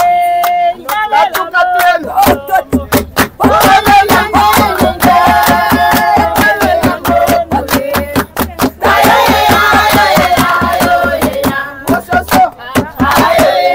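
A group of people singing together, with steady rhythmic hand clapping running through most of the song.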